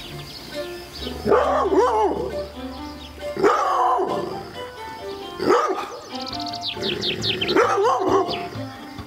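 A dog barks four times, about two seconds apart, over background music.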